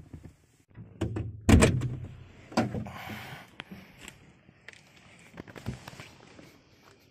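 Land Rover door being worked from inside: a run of metal clunks and knocks from the latch and door, the loudest about a second and a half in, with fainter knocks later.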